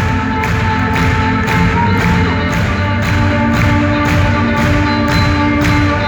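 Live band playing a song's instrumental opening: a steady beat of about two and a half hits a second under held chords and a bass line.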